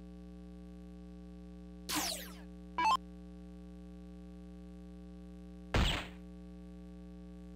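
Electronic soft-tip dartboard: two short electronic sound effects about two and three seconds in, then a dart striking the board near the end, followed at once by the machine's falling electronic scoring sound for a bull. A steady electrical hum runs underneath.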